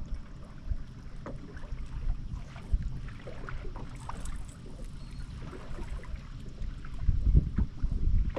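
Wind buffeting the microphone as a gusty low rumble that grows stronger near the end, with scattered small clicks and knocks.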